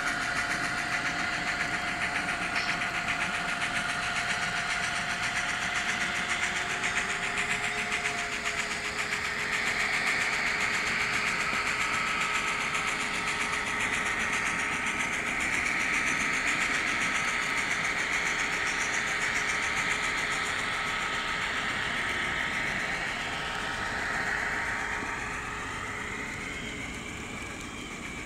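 N scale model trains running on the layout: the small locomotive motors whine steadily and the wheels rattle along the track in a fast, even clicking. One whine stops about eight seconds in.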